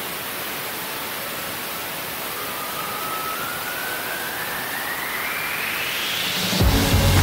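Bearing-in-a-bearing spinner, several ball bearings nested inside one another, being spun up: a loud steady hiss, with a whine that climbs steadily in pitch as the bearings gain speed. Music comes in near the end.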